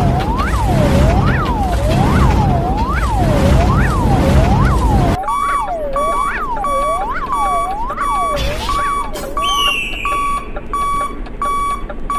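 Railroad-crossing warning sound effects: a siren-like tone sweeps up and down about once a second over the low rumble of a passing train. The rumble cuts off about five seconds in, and then an electronic crossing bell joins in, beeping about twice a second.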